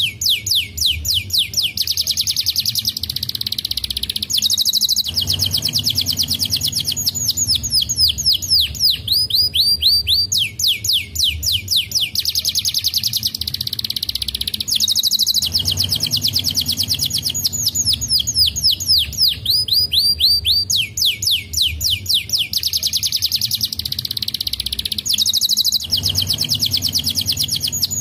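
Canary singing a fast rolling song: long trills of rapid falling whistled notes, switching to a new trill every second or two, with the same run of phrases coming round again about every ten seconds.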